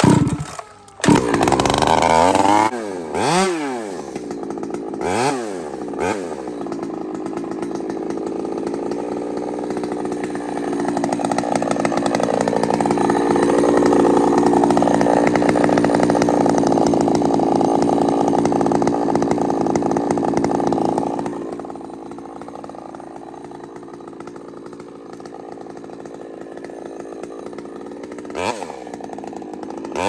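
Big-bore Husqvarna chainsaw with a ram's-horn muffler, cold-started on the choke: it fires within about a second of the pull and is blipped up and down a couple of times. It then runs at high revs for about ten seconds, drops to a steady idle about two-thirds of the way through, and gets one short blip near the end.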